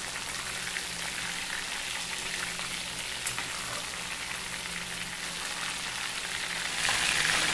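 Battered chicken drumsticks deep-frying in hot oil: a steady sizzle with small crackles, a little louder near the end.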